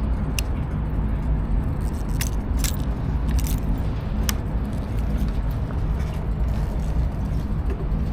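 Royal Enfield Hunter 350's single-cylinder engine and exhaust running at a steady, unchanging pitch, with no revving. A few sharp clicks or ticks come through in the first half.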